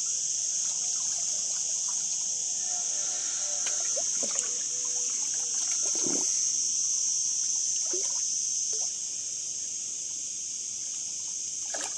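Cicadas buzzing in a steady, high-pitched drone, with scattered faint knocks and small water sounds beneath it. The drone eases slightly about nine seconds in.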